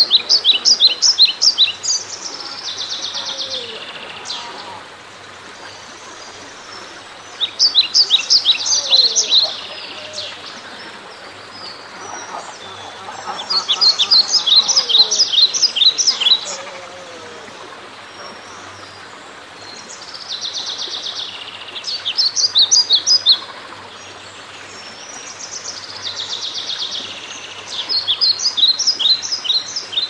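A songbird singing the same short song about every six seconds, five times in all. Each song is a quick series of high notes with a buzzy stretch. Faint steady outdoor background noise runs underneath.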